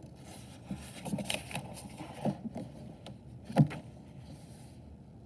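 Pages of a paperback book being turned by hand: paper rustling and sliding in short strokes, with one louder brush about three and a half seconds in.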